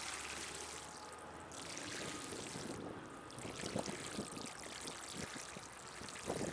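Water poured slowly from a watering can onto a patch of lawn, a steady splashing trickle, to flush out the dog urine.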